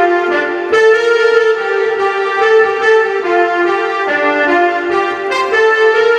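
Korg Pa300 arranger keyboard playing a melody of held notes on a reedy wind-instrument voice from its Indian tones, with a light rhythm accompaniment underneath.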